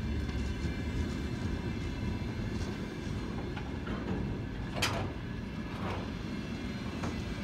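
Empty freight flat wagons of a passing train rolling by with a steady low rumble. A sharp clack of the wheels sounds about five seconds in, and fainter ones follow near the end.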